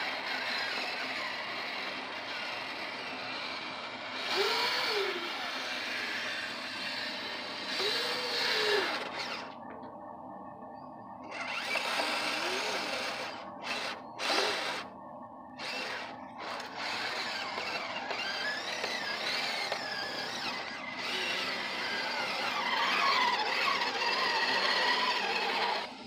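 Kyosho Blizzard RC snowcat's twin Traxxas Titan 380 brushed electric motors and gearing whining as the tracks churn through deep snow. The pitch rises and falls several times with the throttle, with a few short breaks.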